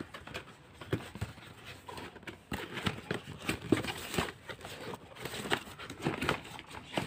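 A white cardboard box being handled and opened by hand: irregular scrapes, taps and rustles of card as a flap is pulled back and the contents are slid out.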